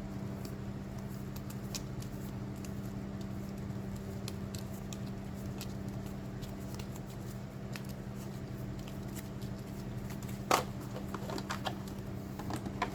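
Game cards being handled and leafed through, with scattered light taps and slides and one sharper tap about ten and a half seconds in, over a steady low hum.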